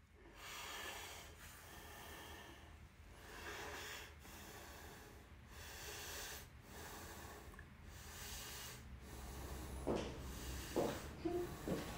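A person breathing heavily and slowly, about one breath every second and a quarter, with a few short sharper sounds near the end.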